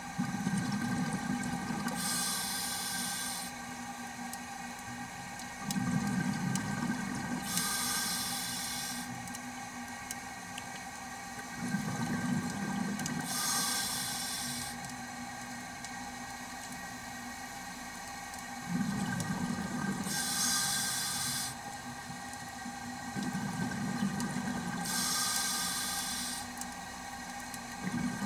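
A scuba diver breathing through a regulator underwater: the low rumble of exhaled bubbles, then the hiss of the demand valve on each inhale, five breaths about every five to six seconds. Under it runs a faint steady hum.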